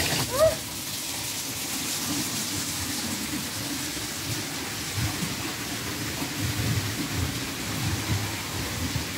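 Wind rumbling on the microphone over a steady outdoor hiss. A short rising squeak sounds about half a second in.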